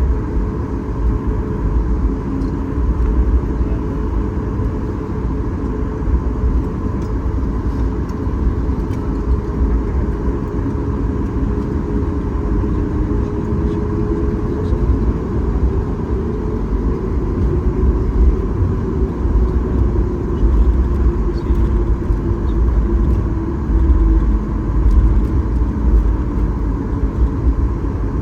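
Cabin noise of a Boeing 737 MAX 8's CFM LEAP-1B engines at idle thrust during taxi after landing: a steady low rumble with a steady hum over it, the hum wavering a little in pitch midway.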